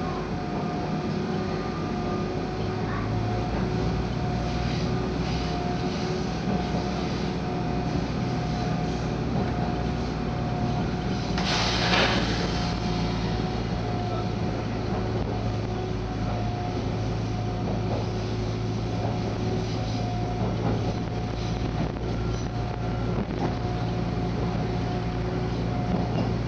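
Passenger train running, heard from inside a carriage: a steady drone with a held whine over it and scattered faint clicks from the rails. A deeper hum comes in about two and a half seconds in, and a brief rush of hiss passes at about twelve seconds.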